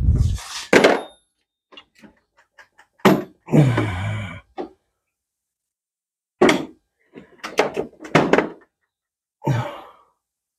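Steel sockets and hand tools knocking and clinking as they are handled at a plastic socket case, with footsteps on a concrete floor: a series of separate knocks and clatters, some with a short metallic ring.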